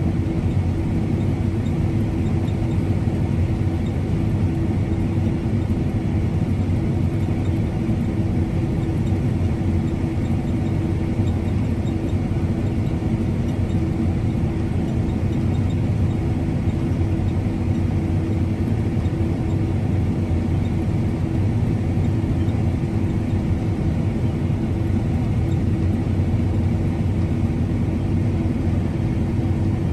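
Harvest machinery running at a steady engine speed: a continuous hum with a clear steady tone.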